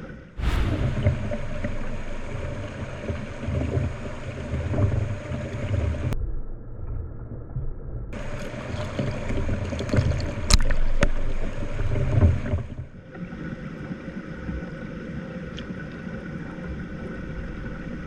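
Rushing water of a snowmelt mountain stream close to the microphone, a steady noisy rush that changes abruptly several times: muffled for a couple of seconds, then full again, then quieter. One sharp knock stands out about ten seconds in.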